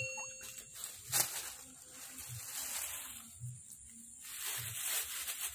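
Grass rustling and soft low thumps, about one a second, as a freshly caught tilapia is handled in the grass of the bank.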